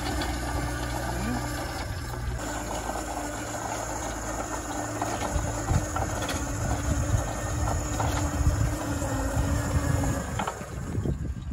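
Battery-powered helicopter mover's electric drive motors running as it rolls across tarmac, a steady hum that stops about ten seconds in. Wind rumbles on the microphone.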